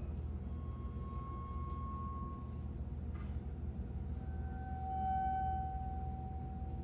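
Quiet improvised music of held tones: a thin, high pure tone sustains for about two seconds and fades. About four seconds in, a lower tone enters, swells and holds, over a steady low hum.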